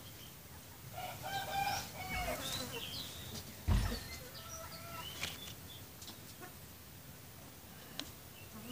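Chickens clucking in a run of short calls about a second in, with small birds chirping. A single dull thump a little under four seconds in.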